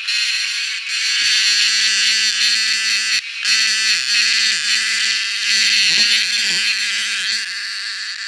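Cicadas calling in a loud, continuous, high-pitched chorus. A faint low hum sits underneath from about a second in, and all sound cuts out briefly about three seconds in.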